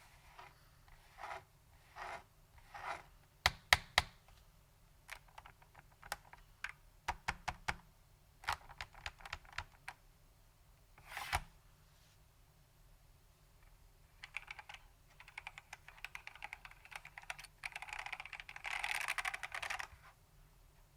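Vintage Datacomp DFK-191 mechanical keyboard with SKCM White Alps switches and ABS keycaps being typed on. It starts with single keypresses a second or so apart, a few of them sharp and loud, then turns to fast continuous typing near the end.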